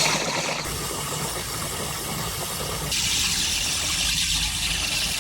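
Refrigerant hissing out of a Jeep's air-conditioning system as it is discharged before the A/C compressor is removed: a steady, strong hiss that grows stronger about three seconds in.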